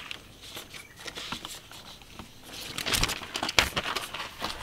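Paper rustling and crinkling as flyers are handled, with a run of sharp clicks and knocks in the second half.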